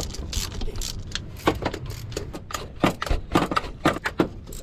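Irregular metallic clicks and clinks of hand tools working the starter's top mounting bolt as it is threaded in and tightened.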